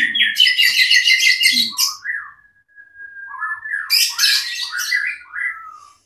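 White-rumped shama (murai batu) singing: a fast run of repeated notes, then a long steady whistle about two seconds in, then varied warbled phrases.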